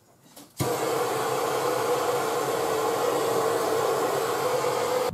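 Air-over-hydraulic pump running steadily with a loud hiss and hum, driving the 10-ton frame machine's hydraulic ram to pull on the pickup's bent frame rail. It starts abruptly about half a second in.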